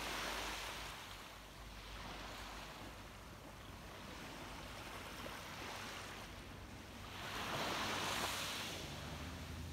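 Small ocean waves lapping and washing up the sand, the surf hiss swelling twice: once at the start and louder about seven and a half seconds in. A low steady hum comes in near the end.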